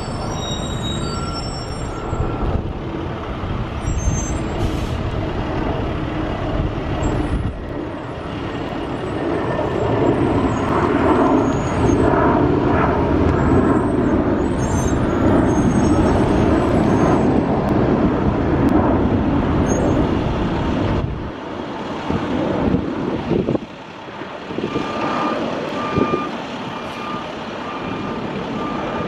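School bus diesel engines running as buses pull out of the yard, with the engine noise growing louder for several seconds in the middle as one passes close. Near the end a backup alarm beeps steadily, about once a second.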